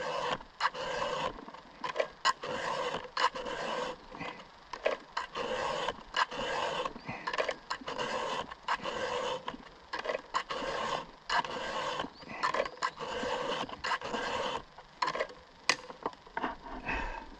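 Chainsaw chain being sharpened with a hand file: short rasping file strokes, roughly one a second, with light clicks between them.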